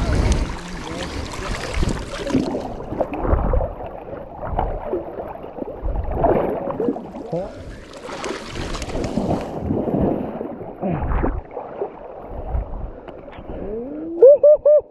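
Legs in waders pushing and splashing through fast, shallow river water, in irregular surges about every second or two, with wind on the microphone. Near the end come a few short pitched voice cries.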